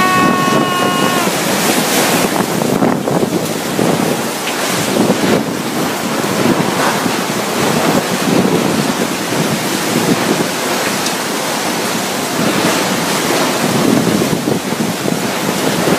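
Typhoon-force wind and driving rain, a dense, steady rush that swells and eases in gusts, with wind buffeting the microphone.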